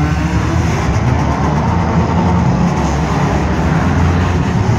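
The engines of several compact demolition derby cars running at once, a loud, steady, dense low rumble.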